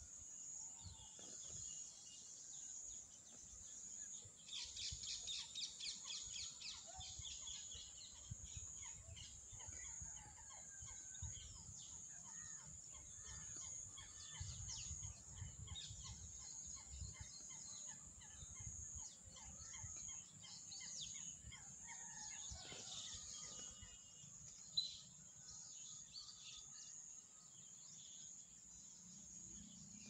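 Faint outdoor ambience: a steady high insect drone under scattered bird chirps and calls, with a low wind rumble and one sharp click about 25 seconds in.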